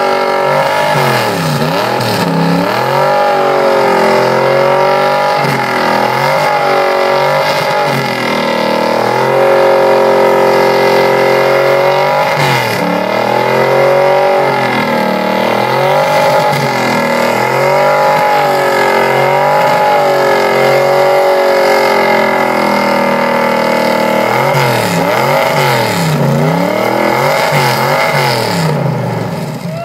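A supercharged pickup truck engine revving hard during a burnout, spinning the rear tyre into smoke. It climbs and falls back over and over, with stretches held at high revs.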